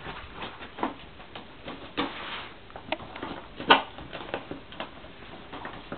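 Cardboard rustling and light tapping as a cat paws and noses at the opened doors of a cardboard Advent calendar, hunting for treats hidden inside. Scattered soft knocks, a short rustle about two seconds in, and a sharper click a little past halfway.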